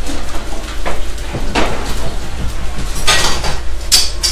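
Commercial kitchen clatter: pans, plates and utensils knocking and clanking in a few sharp strikes over a steady low hum.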